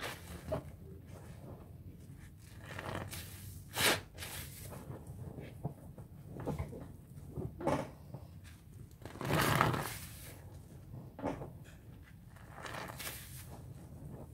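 A sponge squeezed and swished by hand in a sink of thick Ajax dish-soap foam, rinsing out the paste. It makes irregular squelches and sloshes of sudsy water, the longest about nine seconds in.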